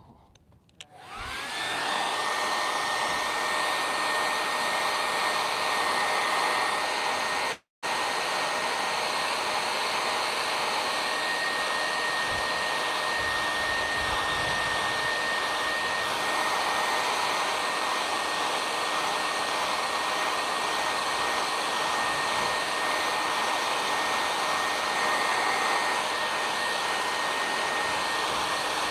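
Conair handheld hair dryer switched on about a second in, its motor whine rising to a steady high tone over a constant rush of blown air, then running steadily while drying spray paint on a stencilled canvas. There is a split-second gap in the sound about eight seconds in.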